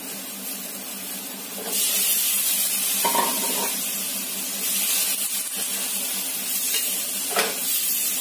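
Cut eggplant and green beans dropped into hot oil in a metal wok: the sizzling jumps up suddenly about two seconds in and keeps going. A metal spatula knocks against the wok a few times as the vegetables are stirred.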